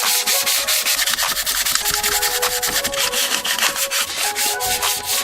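Sandpaper being rubbed by hand over a plastic steering column in quick, rapid back-and-forth strokes, scuffing the surface ahead of painting.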